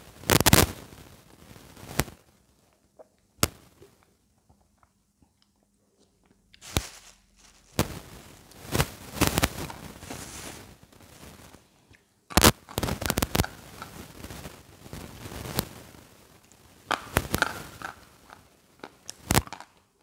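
Chalk crunched between the teeth and chewed close to a lapel microphone: sharp crunching bites and chewing in irregular bursts, with a short lull a few seconds in.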